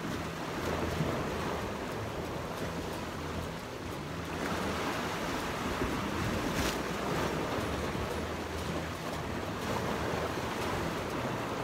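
Sea waves washing against shoreline rocks in a steady rush, with wind buffeting the microphone.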